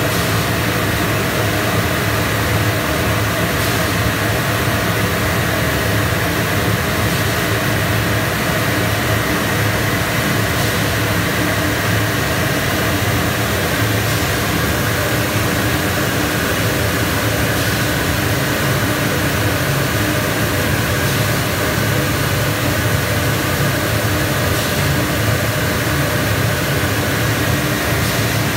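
RB4000 75 hp blower driving two slot air knives that blow water off a moving steel sheet: a loud, steady rush of air with a constant machine hum, unchanging throughout.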